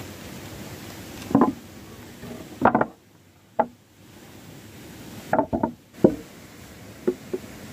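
Wooden pieces knocking against each other in a handful of short, irregular knocks, over a low steady hiss.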